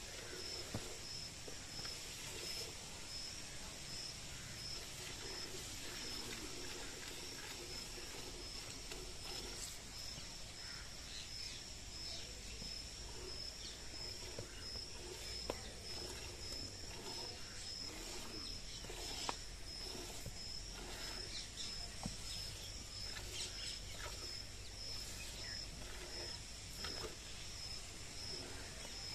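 A cow being milked by hand into a steel pail: short irregular spurts of milk hitting the pail, over a steady, rapidly pulsing high trill.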